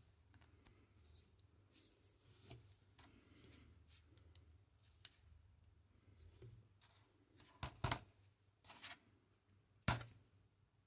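Small fischertechnik plastic parts being handled and slid on a metal axle, giving faint scattered clicks and rubbing. A quick cluster of sharper clicks comes near eight seconds and one louder click near ten seconds.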